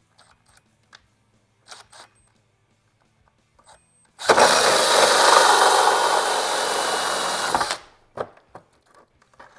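Cordless Ryobi 18V drill with a 1¾-inch hole saw cutting through a plastic interior trim panel. About four seconds in, the cut runs for roughly three and a half seconds, then stops suddenly. Light clicks and knocks of handling come before and after.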